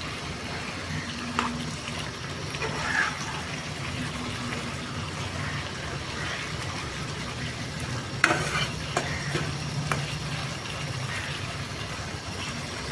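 Chicken curry frying in a pan as it is cooked down bhuna-style, sizzling steadily while being stirred, with a few sharp scrapes and knocks of the spoon against the pan, the loudest about eight seconds in.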